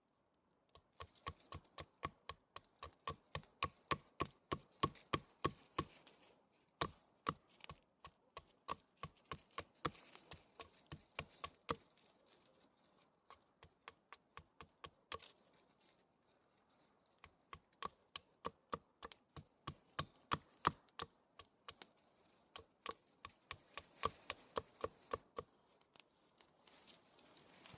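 Runs of sharp, evenly spaced chopping strikes, about two to three a second, with short pauses between runs.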